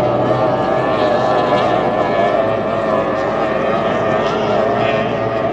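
Several Formula 1 tunnel-hull powerboats racing at full throttle. Their outboard engines make a loud, steady, high-pitched drone of overlapping tones that waver slightly as the boats go round the turn.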